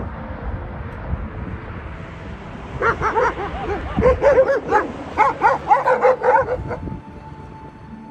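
Dogs letting out a quick run of short yelping barks, starting about three seconds in and lasting about four seconds, as shepherd dogs and a mongrel meet.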